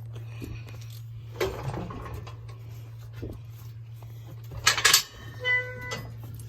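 Steel cattle chute and gates clanging: a clank about a second and a half in, then a loud metal crash near five seconds followed by a brief ringing, over a steady low hum.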